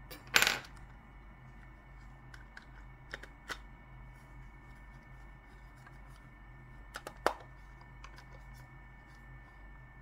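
Clinks and clicks of small hard objects on a hard surface: one sharp clink about half a second in, a couple of lighter clicks a little after three seconds, and a quick double click with another clink near seven seconds, over a faint steady hum.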